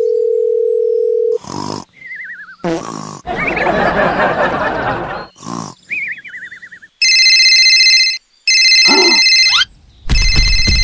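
Edited phone sound effects: a steady telephone dial tone for about two seconds, a few short comic effects and a noisy grunt-like sound, then a phone ringing in three bursts from about seven seconds in, the last burst with a low buzz under it.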